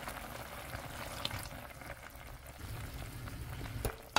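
Lotus root slices simmering in soy-sauce braising liquid in a pan, bubbling and sizzling steadily, with a few light clicks and one sharp click near the end.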